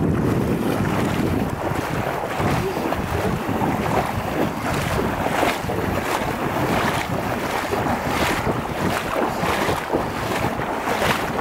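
Legs wading through about a foot of floodwater, sloshing with a splash at roughly every step, about once a second. Wind buffets the microphone throughout.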